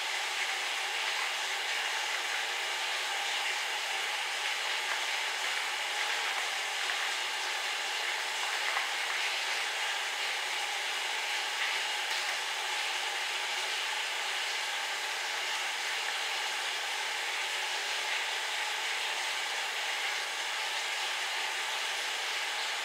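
A steady, even hiss with no distinct sounds standing out from it.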